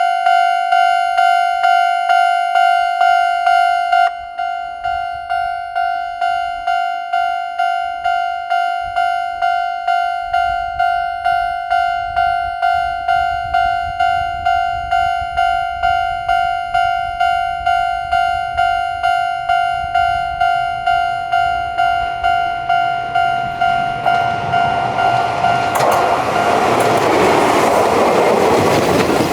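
Japanese railroad crossing's electronic warning bell ringing over and over, about two strikes a second. It drops in loudness about four seconds in. Near the end a train approaches and runs past, its wheel and running noise swelling until it drowns out the bell.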